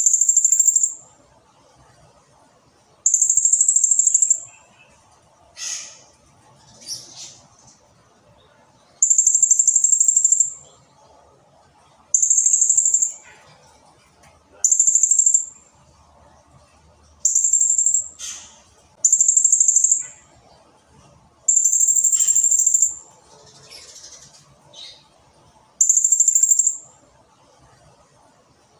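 Blue-crowned hanging parrot (serindit) calling: very high, rapid trills, each a second or two long, repeated about nine times, with softer short chirps in between.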